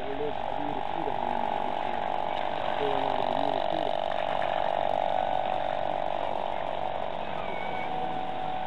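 Radio-controlled model lifeboat's motor giving a steady, fast-pulsing buzz, louder in the middle as the boat turns close by, then easing as it moves off.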